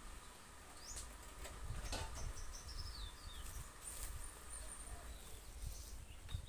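Plastic fruiting bags of oyster mushroom spawn crinkling and clicking as they are packed upright into a drum. A few short bird chirps sound over it, including a falling run of chirps about halfway in.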